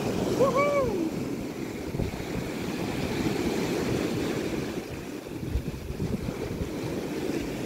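Sea waves washing onto a rocky shore, with gusty wind buffeting the microphone.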